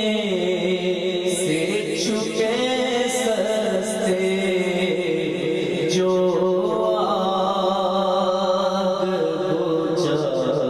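A man singing an Urdu naat solo into a microphone, holding long notes that glide and waver in pitch.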